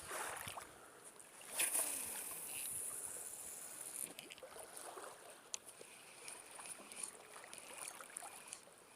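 Outdoor waterside sound with a sudden swish about one and a half seconds in that trails off as a hiss over the next few seconds, with scattered faint clicks and light water sounds.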